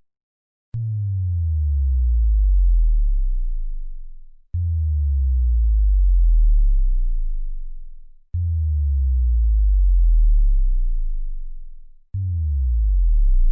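Four synthesized bass drop sound effects in a row, about four seconds apart. Each opens with a sharp click, then a deep sub-bass tone slides downward in pitch, swells and dies away; the last one is still sounding at the end.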